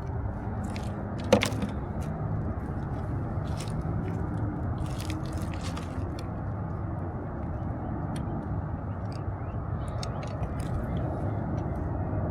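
Litter and debris crunching and crackling as it is handled, with one sharp knock about a second and a half in, over a steady low rumble.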